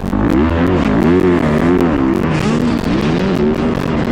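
Motocross bike engine heard up close from the rider's helmet, revving up and down repeatedly as the throttle is worked through the track's rollers and turns.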